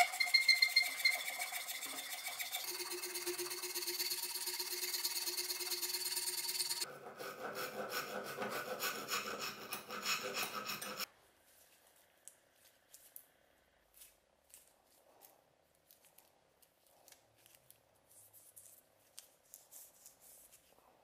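Hand file rasping in continuous strokes against the metal collar on the end of an ash axe handle clamped in a vise, with a metallic ring whose pitch changes twice. It stops about eleven seconds in, leaving only faint light ticks of handling.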